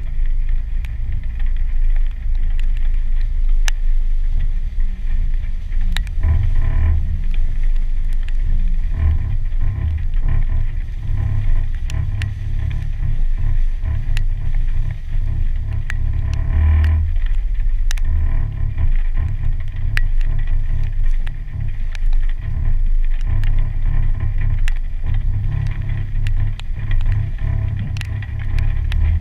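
A Jeep Wrangler's 3.6-litre V6 and its tyres on a muddy trail, a low, uneven rumble that swells twice, with scattered sharp ticks throughout.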